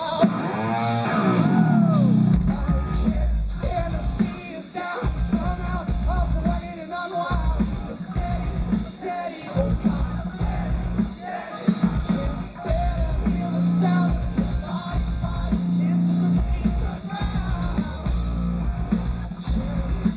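Live hard rock band playing loud, with heavy drums and bass, distorted guitars and vocals. A pitch swoops downward about a second in.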